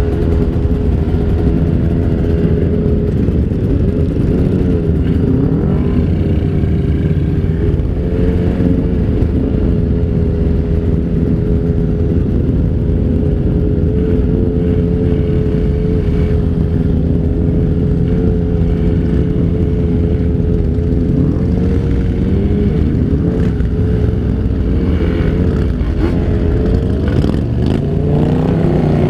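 Kawasaki Ninja 150 RR two-stroke single-cylinder engine running loud at steady revs, its pitch wavering and then climbing again near the end.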